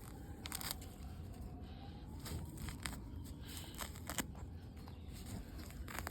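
Weeds being pulled and torn from between deck boards: irregular snapping clicks and rustling over a low steady rumble.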